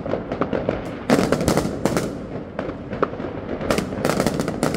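Many fireworks going off at once: a dense run of sharp bangs over constant crackling, with a loud bang about a second in.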